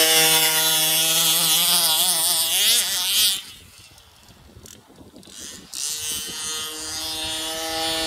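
King Motor T2000 RC truck's small two-stroke gas engine running at high revs, its pitch wavering up and down with the throttle. About three and a half seconds in it falls to faint, then comes back about two seconds later as a steady high-pitched note.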